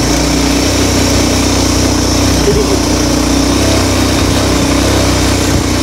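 Motorcycle engine running steadily, heard from the pillion seat as the bike rides over a rough, rocky dirt track.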